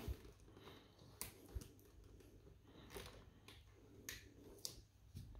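Near silence broken by a few faint, scattered clicks and taps: hands on the plastic shell of a robot vacuum as it is pushed back onto its charging dock to seat it on the contacts.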